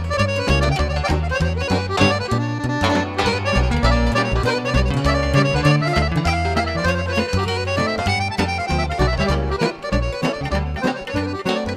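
Romanian lăutărească folk band playing an instrumental passage: a piano accordion leads with fast runs over a steady bass and chord beat, with violin.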